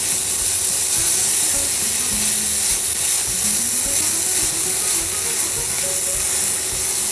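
Crumbled paneer halwa frying in ghee in a nonstick pan, sizzling with a steady hiss as it is stirred with a silicone spatula.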